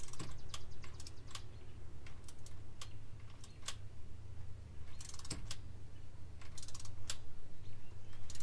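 Ratchet clicks from a torque wrench turning the small Allen bolts of the ignition coil packs. It gives single ticks and quick runs of clicks as the handle is swung back and forth, over a steady low hum.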